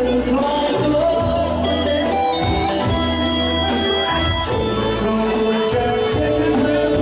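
Cambodian pop song: singing over a band with a steady beat, with a long held note from about halfway through.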